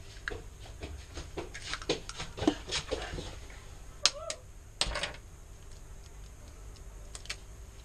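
Raw eggs being cracked by hand: shells tapped and crackling as they are broken and pulled apart, with sharp clicks through the first few seconds and one more near the middle. A brief high cry, rising then falling, sounds about four seconds in.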